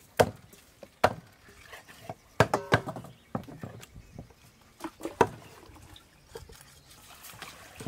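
Meat cleavers chopping raw chicken on thick round wooden chopping blocks: about nine sharp, irregular chops, with a quick run of three about two and a half seconds in.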